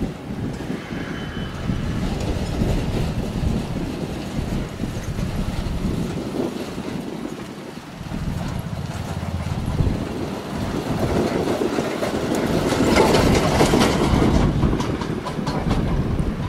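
Airbus A320-232's IAE V2500 turbofans rumbling on final approach. The sound grows louder and hissier for a few seconds past the middle as the airliner comes over the runway to land.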